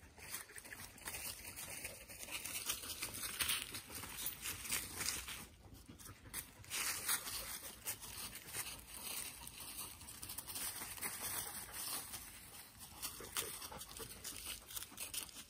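Dry fallen leaves rustling and crunching irregularly as a dog noses and steps through them.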